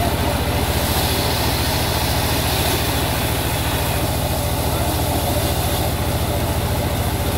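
Portable sawmill's engine running steadily with a fast, even low chugging.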